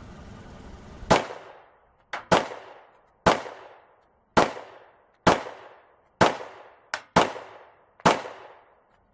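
Glock 19 Gen 3 9mm pistol firing eight shots, roughly one a second, each with a short echoing tail. Two fainter sharp cracks come just before the second and seventh shots.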